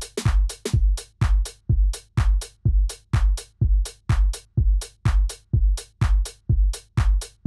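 Background electronic dance music with a steady drum-machine beat, about two deep kicks a second and sharp hits between them.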